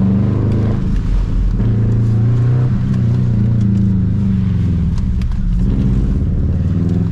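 Subaru Impreza 2.5 RS flat-four engine driven hard through an autocross course, its pitch rising and falling with the throttle and a brief dip about a second in.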